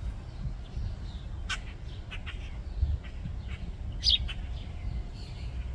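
House sparrows chirping: scattered short chirps, the loudest about a second and a half in and about four seconds in, over a steady low rumble.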